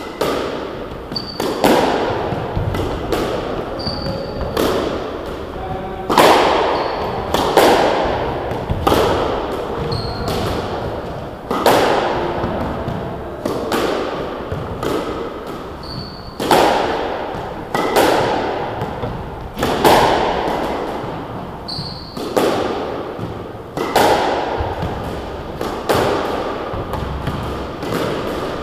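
Squash rally: the ball struck by rackets and slapping off the front and side walls, sharp hits every second or two, each trailing off in the court's echo.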